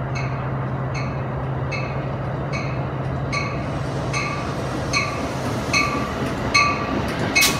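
Amtrak Pacific Surfliner train arriving, its bell ringing steadily a little faster than once a second and growing louder as it approaches, over a steady low rumble. One sharp clank sounds near the end.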